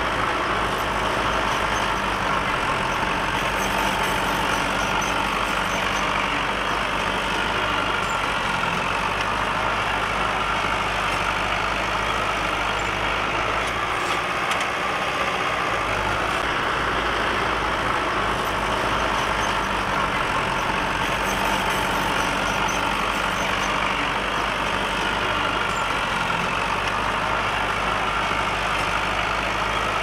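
Small crawler bulldozer's diesel engine running steadily as it pushes dirt.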